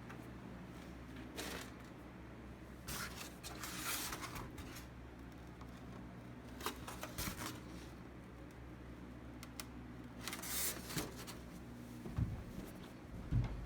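Irregular rustling and handling noises in short bursts, with a few sharp clicks, over a steady low hum.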